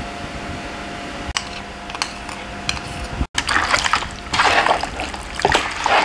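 A steady hum with a few faint clicks, then from about three seconds in, wet squelching and sloshing as pork ribs are worked by hand through a marinade of oil, mustard and sauce.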